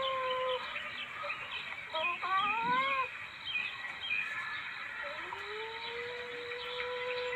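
Civet calls played as a hunting lure: long drawn-out, mewing calls at a steady pitch, one ending about half a second in, a short rising call about two seconds in, and another that rises about five seconds in and then holds. Faint chirps in the background.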